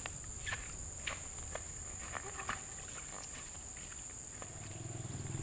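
Countryside ambience: a steady high-pitched insect drone with scattered short chirps and clicks. A low droning hum joins near the end.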